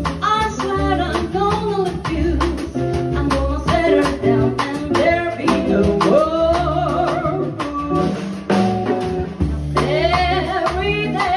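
An acoustic quartet playing a song live, with a singer's voice gliding over guitar, bass and drums.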